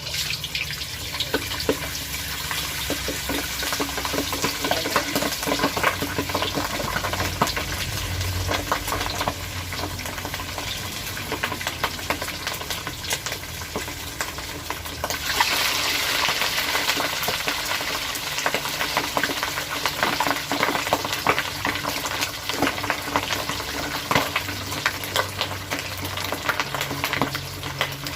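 Boiled pork knuckle deep-frying in hot oil: a steady sizzle thick with crackling and popping spatters, starting suddenly as the pork goes into the oil. The hiss grows louder and sharper about halfway through.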